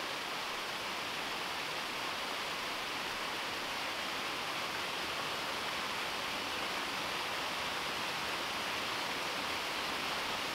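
Small waterfall splashing over rocks into a pond: a steady rush of falling water.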